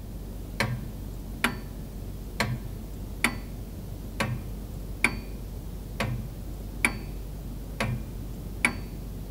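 Clock ticking sound effect: a steady tick-tock, about one tick a second, timing a pause.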